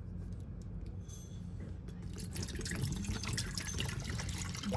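Water poured from a plastic bottle into an empty stainless steel electric kettle, splashing into the metal pot, starting about two seconds in.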